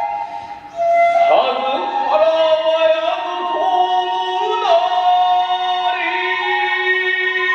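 Hiroshima kagura music: a melody of long held notes that slide from one pitch to the next, with no drums. The level dips briefly about half a second in.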